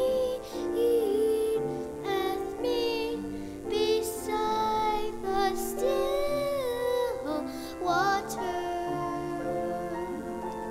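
Mixed church choir singing in parts, voices moving over steady held accompanying notes.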